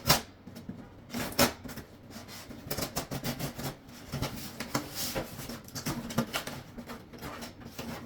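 A cardboard shipping box being opened and its packaging handled: irregular scraping, crinkling and tapping, with a louder knock about a second and a half in.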